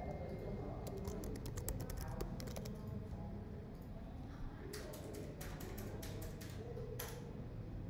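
Computer keyboard typing: a quick run of keystrokes entering a password, then a second, sparser group of key clicks and one sharper click near the end.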